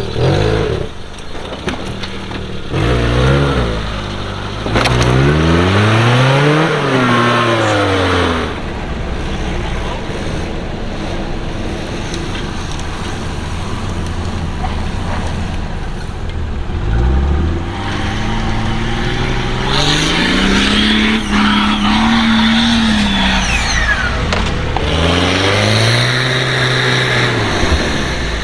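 An off-road 4x4's engine revving up and dropping back three times, the revs held high for a few seconds in the middle one.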